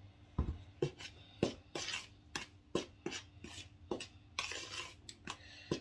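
A metal spoon mixing salt into flour in a plastic mixing bowl: irregular light taps and clicks of the spoon against the bowl, with a dull knock about half a second in and a short scraping rustle a little past the middle.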